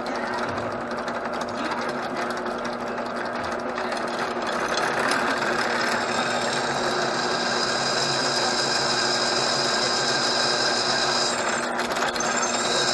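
Benchtop drill press running, its bit cutting a hole through a metal plate under steady hand feed. A high steady whine from the cutting comes in about halfway through, dips briefly near the end, then returns.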